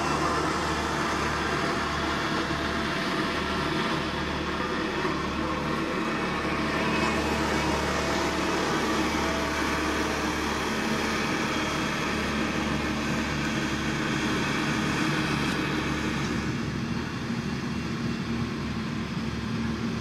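Diesel engine of heavy road-construction machinery running steadily. About three-quarters of the way in the sound drops lower and turns to a regular pulsing throb.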